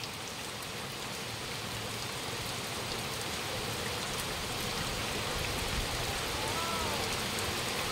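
Heavy rain falling steadily. A faint, brief call rises and falls near the end.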